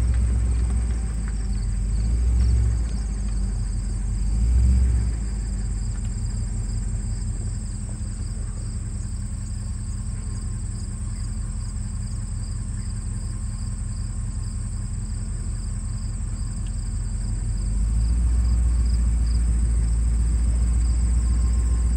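Insects chirring steadily in the grass over a low outdoor rumble. The rumble swells twice in the first five seconds and rises again near the end.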